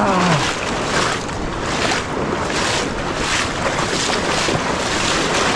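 Shallow seawater sloshing and splashing around the legs of someone wading toward shore, in soft surges about twice a second.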